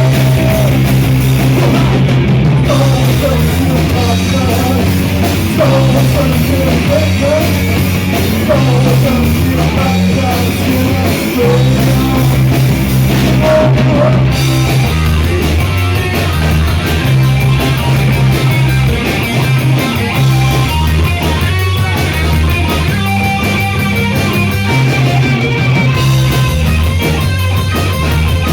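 Rock band playing live, with guitar and a bass line moving in blocks of held notes.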